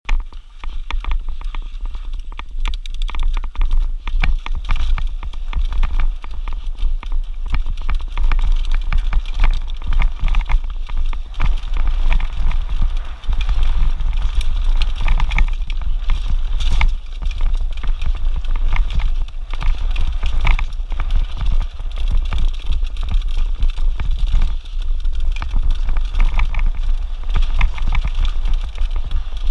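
Mountain bike riding fast down a rocky dirt trail: tyres crunching over gravel and stones, with dense, irregular clattering and rattling from the bike, over a constant low rumble.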